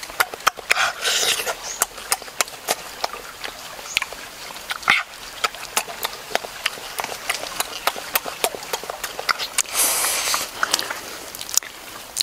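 Wet chewing and lip-smacking of a mouthful of soft, creamy durian flesh, with many quick irregular smacks and two longer breathy stretches, about a second in and near the end.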